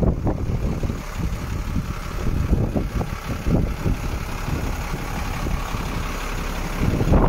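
DAF 45.150 truck's diesel engine idling, heard close to the cab and front wheel, with wind buffeting the microphone.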